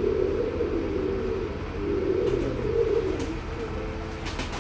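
Domestic pigeons cooing, a continuous low warbling from several birds, with a few short taps in the second half.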